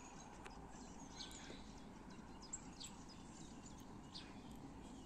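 Faint birdsong from several songbirds: scattered short chirps and whistles over a low, steady background.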